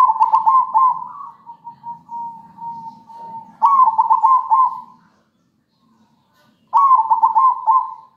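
Zebra dove (perkutut) cooing in three bouts of quick, rolling notes, about five notes each. The first bout trails off into a softer run of notes.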